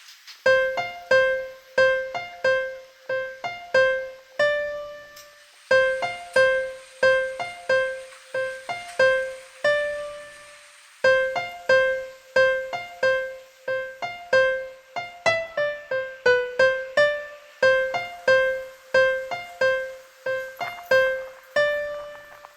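Background music: a simple piano melody played one note at a time, mostly one note struck over and over, with two short pauses.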